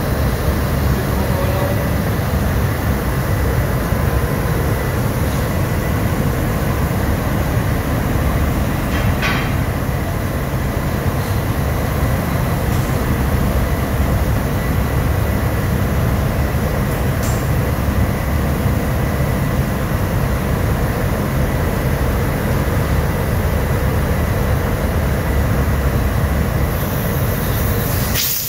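Steady, loud machinery rumble of a ship's engine room, unchanging throughout. Near the end a compressed-air blow gun starts hissing as it blows the cleaned starting-air valve part.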